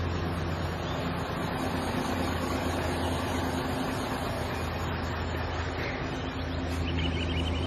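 Car engine idling, a steady low hum.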